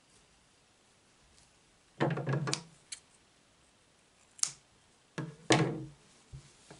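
Handling of a knitted hat on a wooden table: two short, loud thumping handling noises, about two seconds in and near the end. Between them comes a single sharp snip of scissors cutting the yarn.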